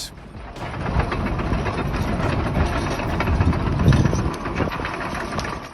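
A heavy vehicle's engine running, getting louder about a second in and fading out near the end.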